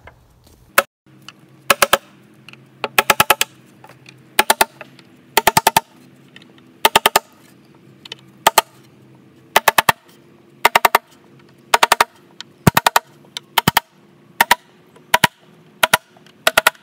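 Claw hammer tapping a steel nail set to sink brads below the surface of a wooden tabletop. The strikes come in quick bursts of two to five sharp, ringing metallic taps, about one burst a second.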